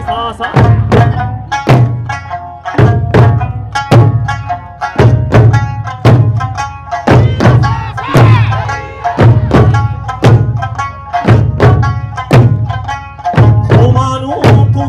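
Eisa drumming: large barrel drums (ōdaiko) and smaller hand drums struck together in a steady pattern of deep booms, roughly two strikes a second. Behind them runs an Okinawan folk song, sung to sanshin accompaniment.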